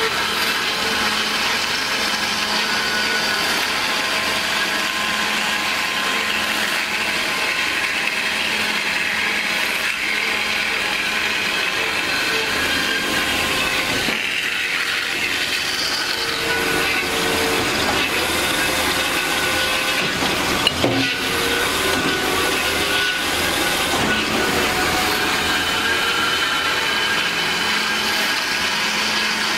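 DoAll C4100NC horizontal band saw running, a steady mechanical whir and hum from its blade drive, changing about halfway through, with one short knock about two-thirds of the way in.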